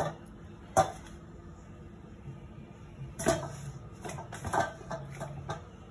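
Sharp knocks and clatter of kitchen things being handled and set down: a rolling board and utensils on a stone counter. Single knocks come a second or more apart, then a quick cluster of lighter taps near the end.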